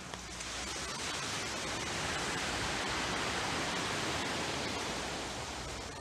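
Sea surf on a sandy shore: a wave breaking and washing up the beach as a hiss that swells about half a second in, is fullest midway, and eases off near the end.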